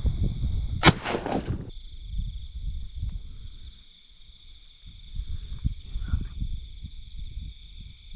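A single shotgun shot about a second in, sharp and loud, with a short echoing tail, followed by low wind rumble.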